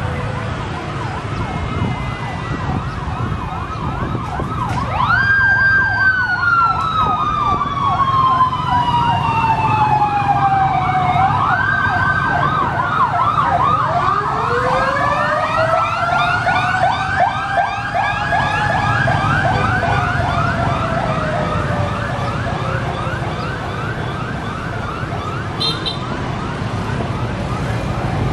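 Several police and motorcade escort sirens sounding together over street traffic: a fast, repeating yelp runs under long wails that fall in pitch, starting about five seconds in and again about twelve seconds in, and a further wail rises and then falls from about halfway through. Motorbike and traffic engines rumble underneath.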